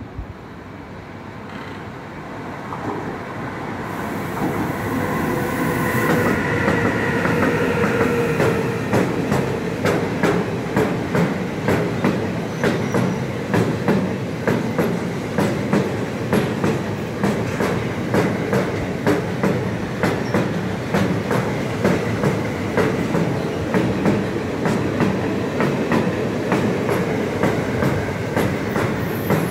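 Car-carrier freight train passing close by, growing louder as it arrives, with a whine early on as the front of the train goes by. Then the wagon wheels clatter over the rail joints in a steady rhythm of clacks.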